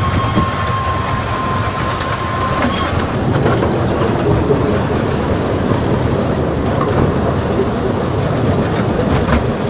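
Miniature railway train running, heard from on board: a steady loud rumble and rattle of wheels on track. A thin steady high tone sounds for the first three seconds and then stops.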